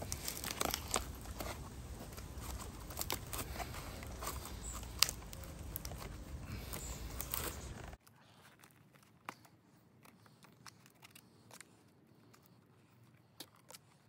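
Close handling sounds of thin wire being twisted by hand around funny pipe on a bird of paradise trunk: scattered small clicks, scrapes and rustles. About eight seconds in the background hiss drops abruptly and the clicks go on more quietly.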